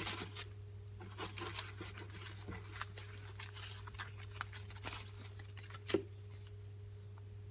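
Faint rustling and scattered light clicks of packaging being handled and unwrapped by hand, with one sharper click about six seconds in, over a steady low electrical hum.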